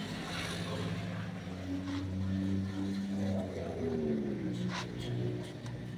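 A vehicle engine running, its pitch sliding down a little past the halfway point, with a short click near the end.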